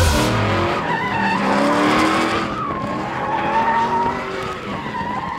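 Drift car sliding through a corner: the engine revs up and down while the tyres squeal.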